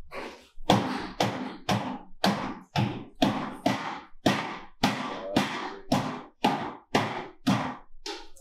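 A steady series of sharp knocks or taps, about three a second, each ringing out briefly before the next.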